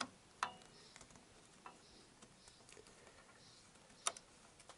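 A few faint, sharp metallic clicks of a bolt and hand tools against a motorcycle frame as a crash bar bolt is lined up, the sharpest about four seconds in.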